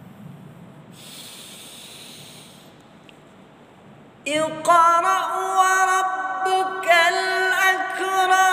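A man's voice reciting the Quran in melodic tilawah style into a handheld microphone. After a breath about a second in, the recitation begins about four seconds in with a long held note that wavers in ornamented turns.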